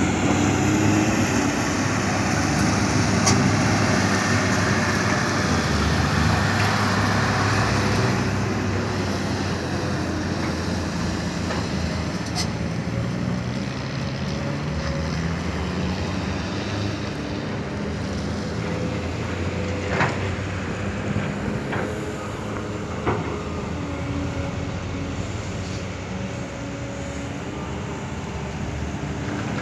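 Heavy diesel engines of a Kobelco SK200 excavator and a ten-wheel dump truck running steadily, louder for the first several seconds and then easing off a little. A few sharp knocks stand out over the engines.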